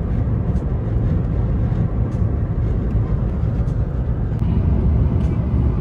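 Steady road and engine noise from inside a moving car, a deep even rumble.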